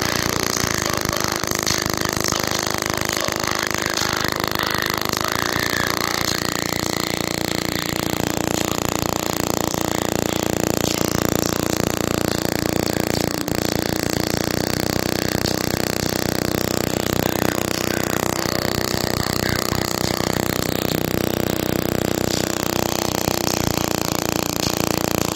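Bare JBL Flip 3 woofer driven hard by a JBL Flip 5 amplifier, playing loud bass-heavy audio that is overdriven and distorted. The level holds steady throughout.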